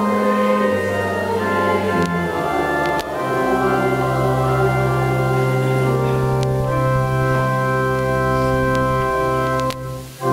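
Church organ playing slow, sustained chords of a psalm-tone setting, one chord held for several seconds in the middle. The sound breaks off briefly near the end before the next chord comes in.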